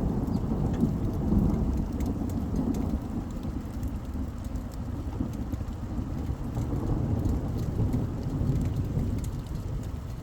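Steady rain with a low rolling rumble of thunder, strongest in the first couple of seconds, and scattered raindrops ticking on a surface.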